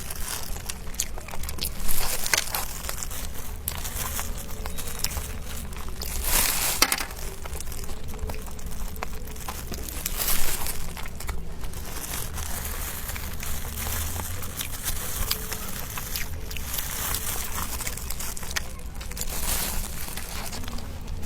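Packaging crinkling and rustling as it is handled and opened, in a run of short crackles with several louder bursts.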